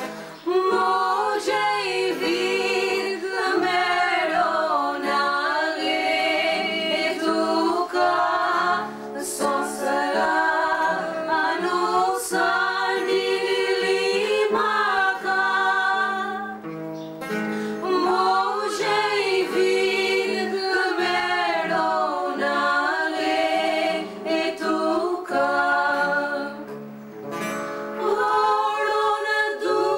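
A song sung by voices over a plucked-string accompaniment, with short breaks between phrases.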